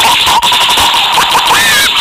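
Loud background music with a steady beat and gliding tones.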